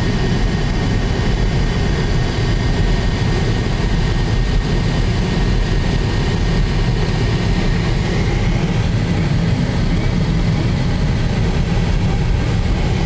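Steady low rumble of a vehicle driving along, heard from inside the cab: engine and road noise with no change in pace.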